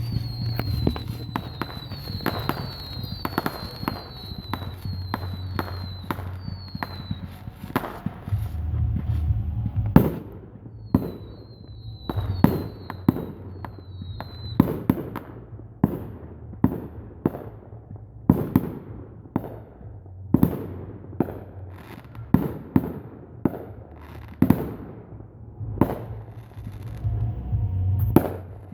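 Fireworks display: aerial shells going off in a steady string of sharp bangs, about one a second, with runs of short high falling chirps in the first half, over a low steady rumble.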